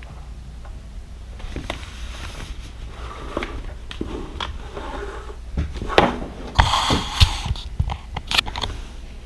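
Hard plastic helmet and goggle parts being handled and fitted together: scattered clicks and scrapes. About six seconds in comes a louder stretch of rustling and sharp knocks.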